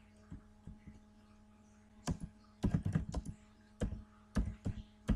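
Typing on a computer keyboard: a few scattered keystrokes, then quicker clusters of clacks from about two seconds in, over a faint steady electrical hum.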